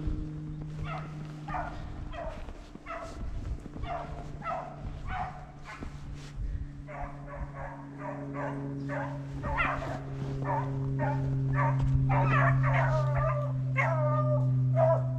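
Rabbit hounds baying repeatedly as they run a rabbit's track, the cries coming thicker and louder through the second half. A steady low hum runs underneath.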